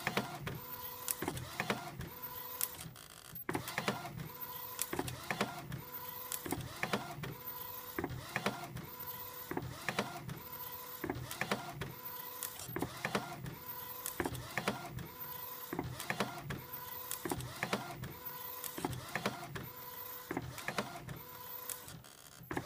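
Epson Stylus Photo 1400 inkjet printer printing an A3+ sheet, its print-head carriage sweeping back and forth in a regular cycle about every 1.2 seconds, with a click and a short squeaking tone on each pass. The squeak is a fault the owner is trying to trace.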